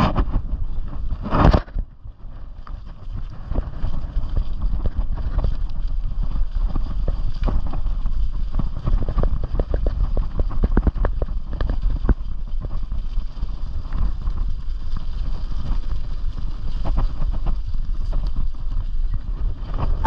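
Bicycle tyres rolling over a leaf-covered gravel track, with constant crunching, rattling and clicks under a low rumble of wind and vibration on a handlebar-mounted microphone. A louder burst comes about a second and a half in.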